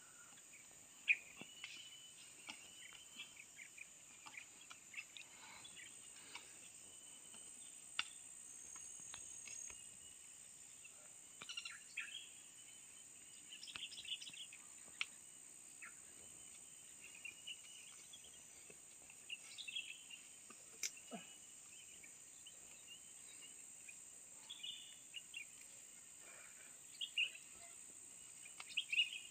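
Faint forest ambience: a steady high-pitched insect drone with scattered short bird chirps and a few brief clicks and taps.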